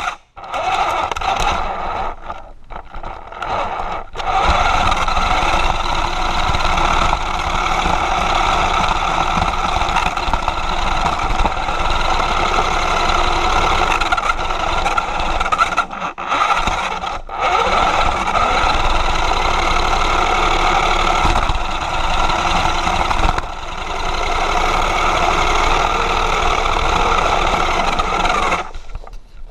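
Radio-controlled car's motor and gears running as it drives across the floor, heard close up from on board the car. It cuts out briefly a few times, at the start, around two to four seconds in and around sixteen seconds in, and stops shortly before the end.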